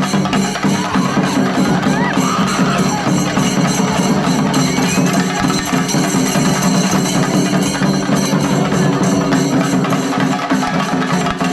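Shinkari melam ensemble playing: chenda drums beaten in a fast, dense, unbroken rhythm with ilathalam cymbals, loud and steady.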